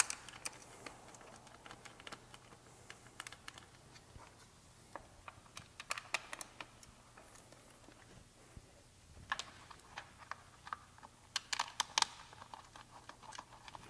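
Light, scattered clicks and taps of a dirt bike's skid plate being held in place and its bolts started by hand, small metal-on-plastic knocks as the bolts are threaded in. A quicker run of sharper clicks comes about nine seconds in and again near twelve seconds.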